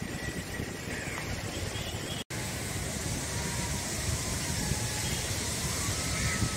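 Wind noise on the microphone and the steady hiss of surf breaking on the shore, with a brief gap in the sound about two seconds in.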